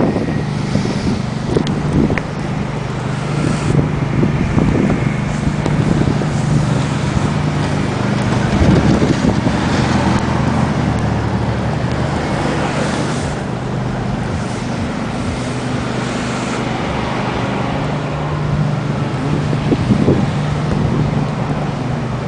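A motor vehicle's engine running with a steady low hum, over rough wind noise on the microphone.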